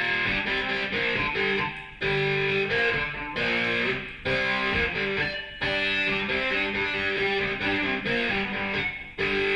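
Guitar music, partly electric guitar, played back through Klipsch RB-81 II bookshelf speakers with a Jamo subwoofer and picked up in the room. The music dips briefly a few times between phrases.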